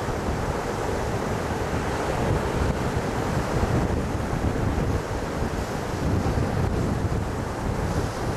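Small surf waves breaking and washing up a sandy beach in a steady, continuous wash, with wind buffeting the microphone and adding a low rumble.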